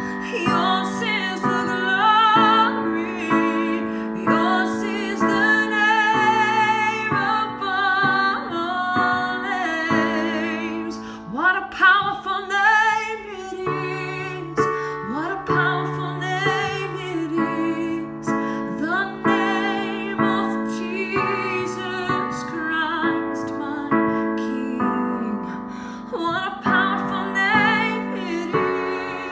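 A woman singing a worship ballad with vibrato, accompanied by a digital piano playing sustained chords.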